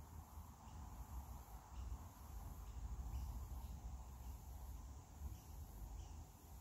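Faint background noise: a low steady rumble, with a faint high-pitched pulsing that repeats a little under once a second.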